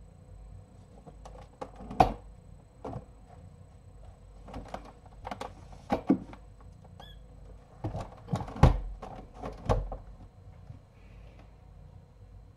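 Irregular knocks, bumps and clatters as a plastic toy camper is handled and shifted by hand, with two louder knocks, one about two seconds in and one past eight seconds.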